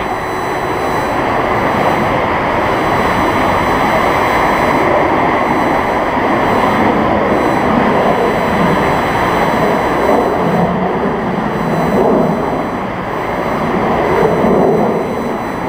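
Boeing 747-400F freighter's four jet engines running at low thrust as it taxis slowly after landing: a loud, steady rushing roar that swells a little as the jet turns away near the end.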